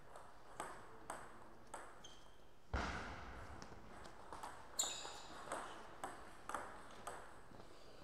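Table tennis ball clicking off the rackets and table in a rally: sharp ticks about half a second to a second apart, with a heavier thump about three seconds in.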